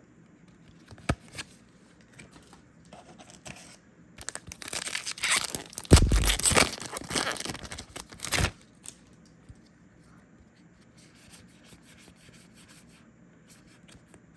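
A foil booster-pack wrapper being torn open and crinkled by hand, a loud rustling tear lasting about four seconds from roughly four seconds in, with a few light card and wrapper clicks before and after.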